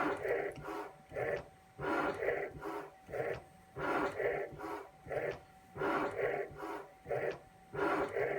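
CNC milling machine running as a shaper: a fixed cutter is drawn back and forth across a flat flex cable, scraping off its plastic coating in very shallow passes. The machine noise comes in a regular cycle about every two seconds, a longer stroke and then a shorter one, with quieter gaps between.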